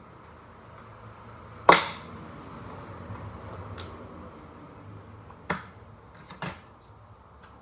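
A few sharp knocks and clicks of hands working fridge door hardware, a handle or hinge part being fitted. The loudest is a hard clack nearly two seconds in; lighter ones follow about two, four and five seconds later.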